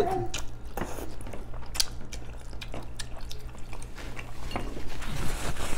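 A mouthful of noodles being slurped in and chewed, with a scatter of short wet mouth clicks and smacks.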